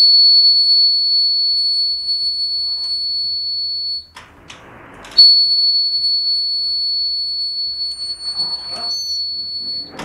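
Electronic alarm buzzer of a laser-and-LDR security circuit sounding a steady high-pitched tone, set off by the door opening and breaking the laser beam on the light sensor. It sounds for about four seconds, breaks off for about a second, then sounds again until near the end.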